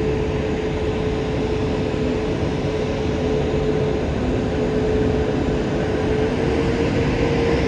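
Airbus A380's jet engines running at low taxi power: a steady rumble with a steady whine over it that rises slightly near the end.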